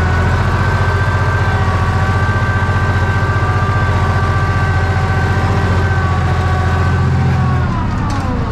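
Ursus C-360 tractor's three-cylinder diesel working hard in first gear pulling a plough, a steady low engine beat with a whine above it. Near the end the engine slows, dropping in pitch and loudness.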